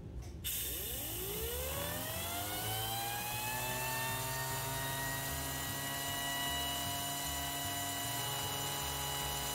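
Compressed air hissing through a 3D-printed impulse turbine as its 2D-cutout rotor spools up. A whine of several tones rises in pitch over the first couple of seconds, then holds as a steady high whine. The rotor is out of balance and running with too much vibration.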